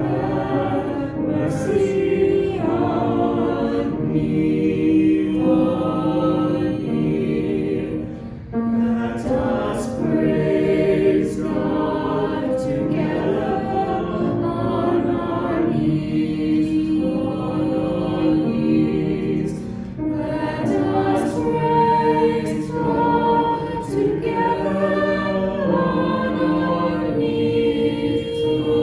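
Choir singing a hymn in long held notes, with a short break between phrases about eight seconds in.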